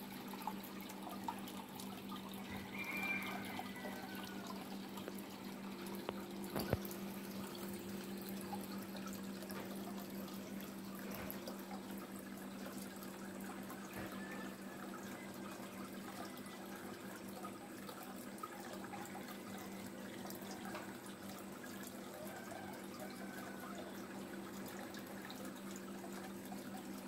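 Water from the koi pond's filter outlet falling and splashing steadily into the pond, with a steady low hum underneath. A single sharp click about seven seconds in.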